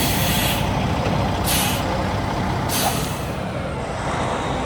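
Air brakes of a heavy truck hissing: three short blasts of released air, about a second apart, over a steady low rumble.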